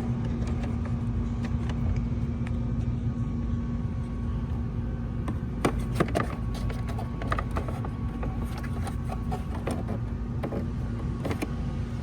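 A steady low hum, with a few light clicks and taps around the middle from hands working at the side-mirror housing and the camera's cable connector.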